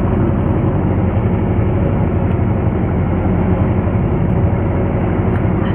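Fishing boat's engine running steadily: a loud, even, low drone heard from inside the hull.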